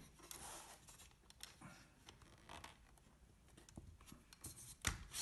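Faint sliding and scraping of a laptop stand's telescoping metal arm being moved after its release is pressed, with scattered light clicks and a sharper click about five seconds in.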